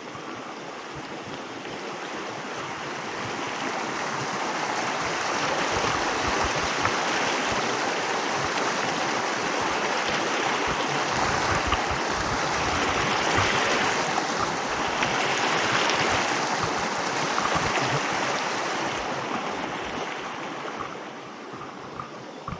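Small mountain creek rushing over rocks. It grows louder over the first few seconds, stays strong through the middle and fades toward the end.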